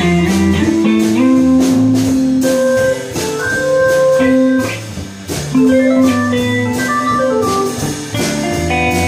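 Live blues jam of guitar, keyboard and drum kit, with long held melody notes stepping between pitches over a bass line and steady drum strokes. The playing briefly drops back about five seconds in.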